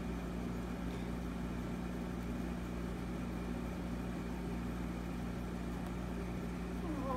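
Steady low mechanical hum with no distinct sounds on top of it.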